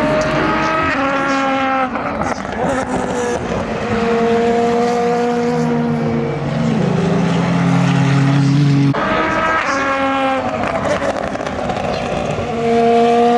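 Endurance race car engines at full throttle, one car after another, their notes rising in pitch as they accelerate through the gears. About nine seconds in, a new engine note cuts in suddenly.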